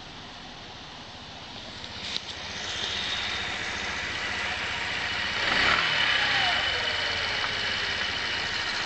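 A 125 cc motorcycle engine idling on its stand with an abnormal noise, revved once about halfway through, its pitch falling back over the next couple of seconds. It is echoing in a basement.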